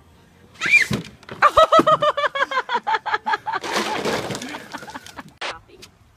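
A bucket of ice water and ice cubes dumped over a person, the ice clattering down, while he lets out a quick run of gasping yells at the cold, about five a second, followed by a hissing breath.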